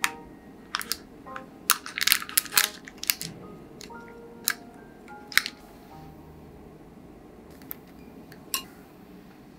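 Sharp clicks and crinkles of chopsticks and plastic wrap against a bento box as food is packed into it, thickest in the first three seconds and then scattered. Light background music of short held notes plays underneath.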